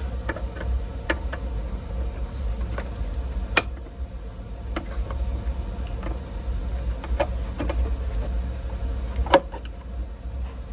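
Scattered clicks and knocks of a tube radio's cabinet being handled and turned over while its two main bottom screws are worked on with a screwdriver, with two sharper knocks, one about a third of the way in and one near the end. A steady low hum lies underneath.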